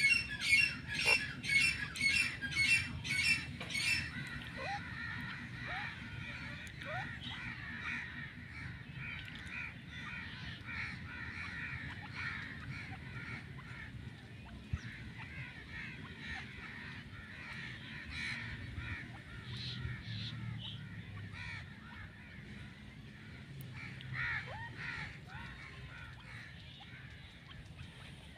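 Grey francolin calling: a loud, shrill note repeated about one and a half times a second for the first few seconds, then stopping. After that, fainter mixed bird chatter and scattered single calls.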